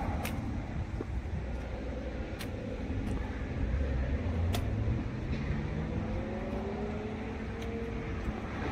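Motor vehicle engine and road noise: a steady low rumble, with an engine rising in pitch as it speeds up about four seconds in and again near the end. A few sharp clicks cut through it.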